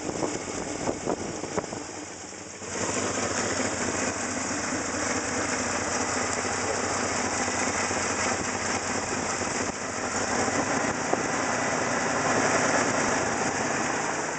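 Chevrolet square-body pickup's engine idling steadily, under a dense rushing hiss. The sound drops away briefly about two seconds in, then comes back.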